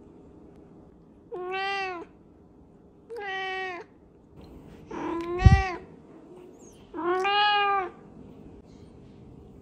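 A domestic cat meowing four times, each call a bit under a second long, with a short low thump during the third call.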